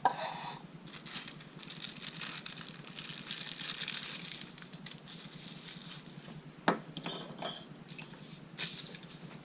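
Handling noise of a folding pocket knife: rustling for a few seconds, then one sharp click about two-thirds of the way in and a few lighter clicks after it.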